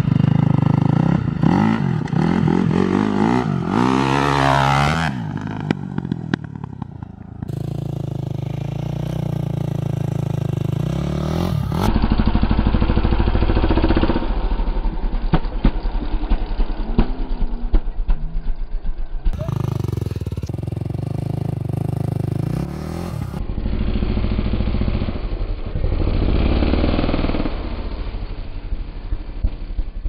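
KTM 250 SX-F single-cylinder four-stroke motocross engine with an Akrapovič exhaust, revving and pulling under throttle as the bike is ridden on dirt. The pitch climbs and drops with the throttle, and the sound breaks off abruptly a few times.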